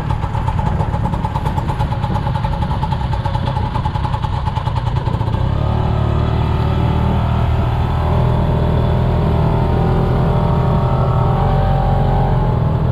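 Motorcycle engine of a tuk-tuk running under way through traffic, a steady pulsing drone. About five seconds in, its deeper rumble grows louder.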